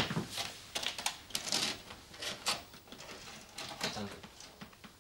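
Irregular plastic clicks and knocks of a VHS videocassette being handled and loaded into a video recorder, the sharpest at the very start.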